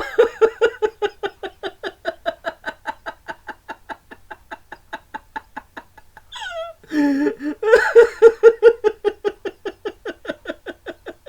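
A person laughing in a long run of quick, even 'ha-ha' pulses, about five a second, easing off about six seconds in and then picking up again louder.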